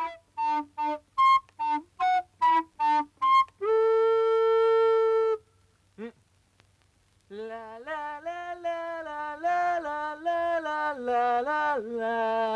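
A wordless melody: a run of about nine short, clipped notes, then one long held note. After a pause of about two seconds, a lower voice carries the tune on, sliding between notes.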